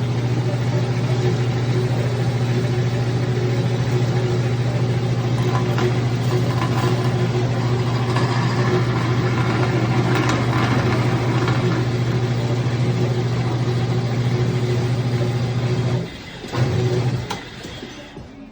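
Bandsaw motor running with a steady hum, with a harsher stretch about eight to eleven seconds in. It cuts off suddenly about sixteen seconds in, comes back for under a second, then stops and winds down.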